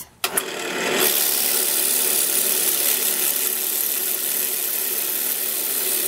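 Wood lathe switched on about a quarter second in, spinning a square-cornered winged blank of 2x8 construction lumber up to speed over the next second, then running steadily with a loud hiss. The sound drops off abruptly at the very end.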